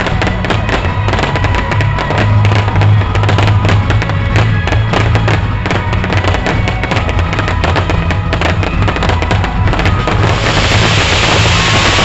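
Aerial fireworks going off in a rapid barrage of sharp cracks and bangs over loud show music. About ten seconds in, the cracks give way to a dense, steady hiss.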